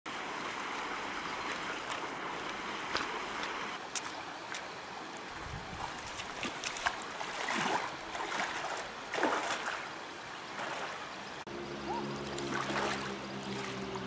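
Shallow river water running, with splashes as feet wade through it several times. Background music comes in about three-quarters of the way through.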